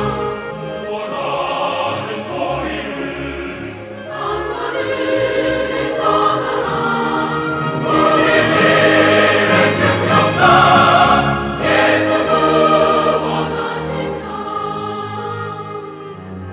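Large mixed church choir singing a Korean hymn anthem in full voice over orchestral accompaniment. It swells louder about eight seconds in and eases off near the end.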